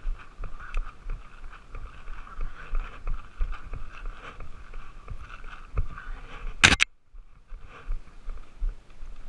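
Footsteps crunching over dry grass and scrub, heard from a camera worn by the walker, with a brief loud crackle about two-thirds of the way through.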